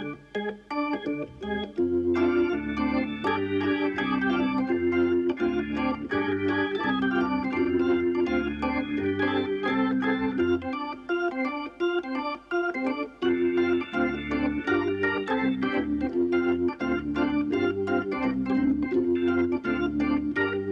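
Intermission music played on an organ, with chords over a stepping bass line.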